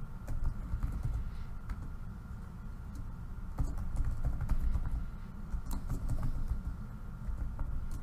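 Typing on a computer keyboard: irregular key clicks as words are typed out, over a low steady hum.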